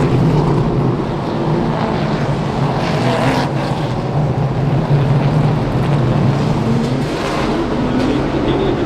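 Race car engines running at speed on the track, a loud steady rumble that swells and eases a little as cars pass.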